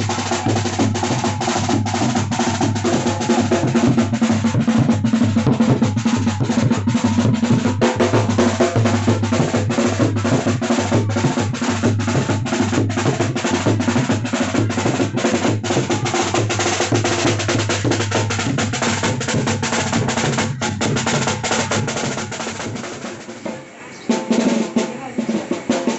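A bass drum struck with a padded mallet and a snare drum played with sticks, beating a fast, continuous processional rhythm with rolls. The drumming falls away about 23 seconds in, with a few loud strokes near the end.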